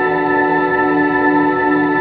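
Background ambient music of long, held notes, with no singing.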